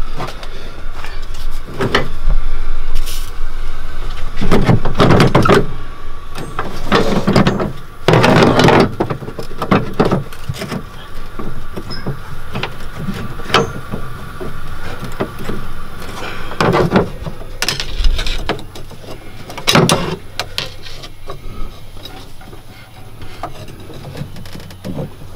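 Hand tools working on a Polaris RZR drive shaft: a screwdriver prying and scraping against metal to free a stuck part, heard as a string of separate knocks and scrapes.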